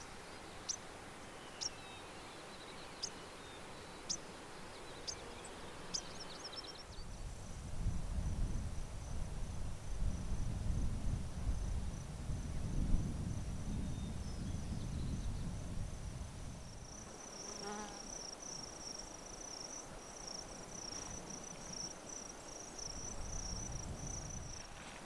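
Short high chirps about once a second for the first several seconds, then a low rumble of wind on the microphone. From about two-thirds of the way in, a steady, high-pitched insect trill carries on to the end.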